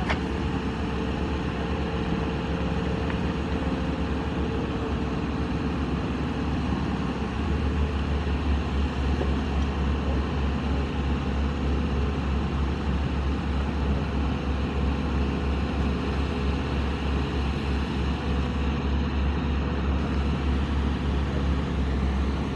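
Steady low rumble of a running engine, growing heavier about seven seconds in.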